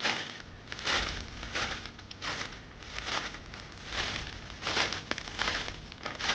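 Footsteps crunching through leaf litter on the frozen forest floor at a steady walking pace, about one step every 0.7 seconds.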